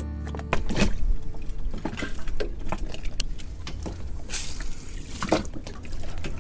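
A plastic garden-hose spray nozzle and hose fittings being handled: a run of small clicks and knocks, with a brief hiss about four and a half seconds in. The newly fitted shut-off valve is closed, so no water comes out of the nozzle.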